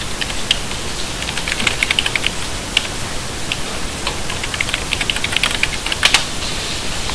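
Computer keyboard being typed on in short irregular runs of key clicks, with one louder click about six seconds in, over a steady background hiss.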